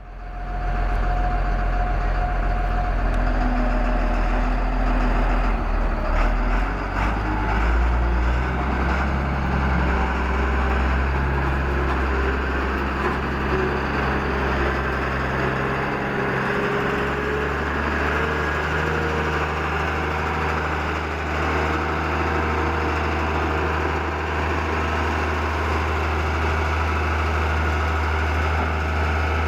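Diesel engine of a 1992 Caterpillar CS563 drum roller running steadily, its engine speed shifting about eight seconds in and again around sixteen seconds in.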